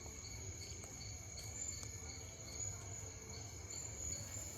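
Evening insects, crickets: one steady high trill together with a regularly pulsing chirp a few times a second, over a faint low rumble.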